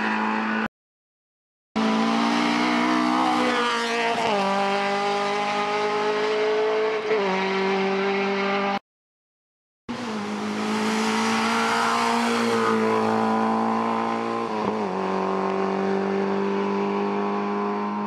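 Hill-climb race car engines at full throttle, each pulling hard up through the gears. There are sharp drops in pitch at each upshift, about four, seven and fifteen seconds in, with a slower climb in revs after each. The sound cuts to silence twice for about a second between clips.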